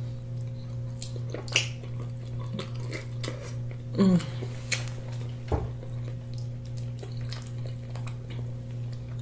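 Close-up eating sounds as braised oxtail is eaten by hand: scattered wet mouth clicks and smacks, fingers working meat off the bone and a light knock on the plate, with a short voiced sound about four seconds in. A steady low electrical hum runs underneath.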